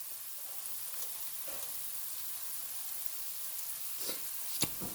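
Chopped peppers and onion sautéing in butter in a pot, a steady sizzle, with a few light clicks near the end.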